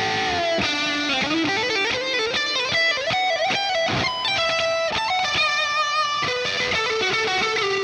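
Electric guitar fitted with Seymour Duncan Jupiter humbucking pickups, played through a Revv Generator 120 amp: a fast single-note lead line with note bends near the start and some held, sustained notes.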